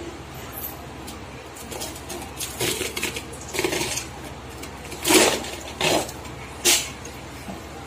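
Crumpled aluminium foil crinkling and crackling in short bursts as it is peeled off the top of a clay cooking pot, the loudest crackles about five seconds in.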